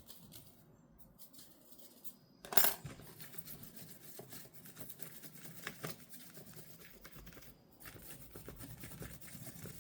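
Small tool scraping and clicking on MacBook internals during cleaning, with one sharp knock about two and a half seconds in, then a dense run of light scratchy clicks.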